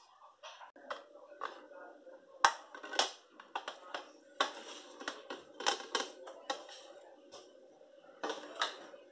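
Plastic plates clattering and knocking, with light taps of cutlery, as a split baked potato is lifted and moved from one plate to another. A steady hum runs underneath.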